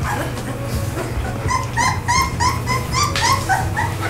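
Three-week-old Rottweiler puppy whimpering in a rapid run of short, high yips, about four a second, starting about a second and a half in.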